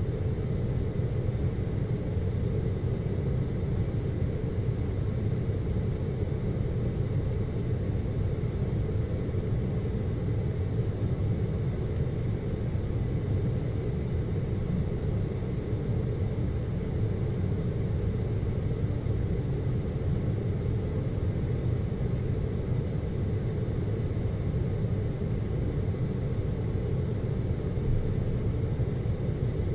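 Aerial cable car cabin riding along its cable: a steady low rumble, with a faint high tone held throughout.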